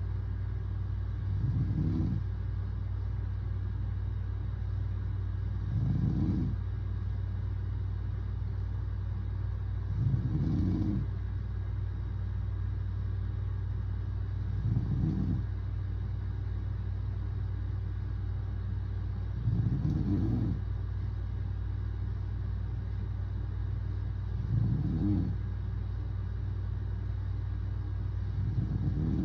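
A man snoring in his sleep, one snore about every four to five seconds, seven in all, over a steady low hum.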